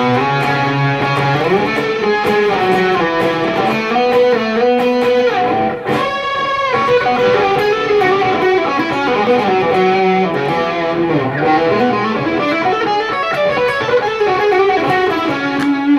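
Fender Player Series Stratocaster electric guitar played through an amplifier with a distorted tone on its bridge pickup: single-note lead lines with string bends, and a chord ringing out about six seconds in.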